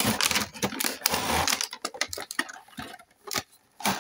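Clear plastic packaging crinkling and a cardboard box rubbing as sealed model-kit parts trays are slid out of the box. A dense run of rustles and clicks thins out after about two and a half seconds and pauses briefly before a few last clicks near the end.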